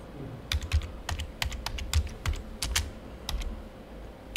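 Computer keyboard typing: about a dozen irregularly spaced keystrokes that start about half a second in and stop shortly before the end.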